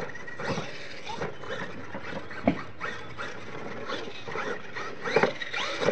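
Radio-controlled monster truck driving and jumping on a dirt track, its motor revving in short bursts, with a sharp knock about two and a half seconds in and louder noise near the end.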